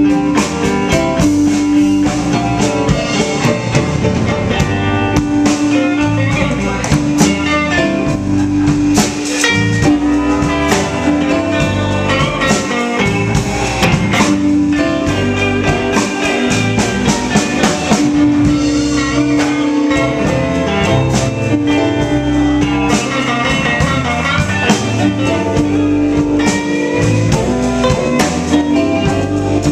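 Live blues band playing an instrumental passage between verses, with guitar and drum kit to the fore and no singing.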